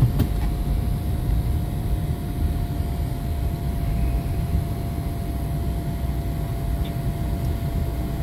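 Cabin noise inside a moving Ford F-250 pickup: a steady low rumble of engine and road, with a thin steady whine above it.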